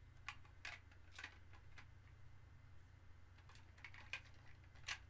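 Faint, scattered small plastic clicks and taps of Lego pieces being handled and pressed back onto a model truck, the loudest click a little before the end, over a low steady hum.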